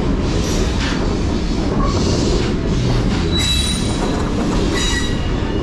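Passenger train cars rolling along the track with a steady rumble of wheels on rail. High wheel squeal cuts in twice in the second half.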